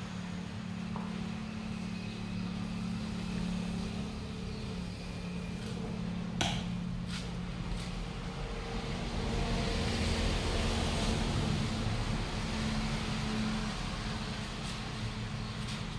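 Steady low machinery hum, with a single sharp click about six seconds in and a swell of hissing noise around ten seconds in.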